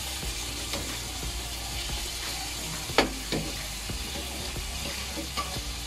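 Chicken pieces and livers sizzling in a wok while a metal slotted spatula stirs them, with one sharp clank of the spatula against the wok about three seconds in.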